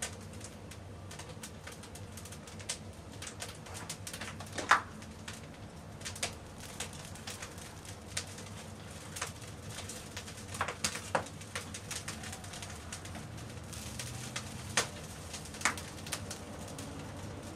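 Dry twigs and brushwood burning in an open wood fire, crackling with irregular sharp pops and snaps, the loudest about five seconds in.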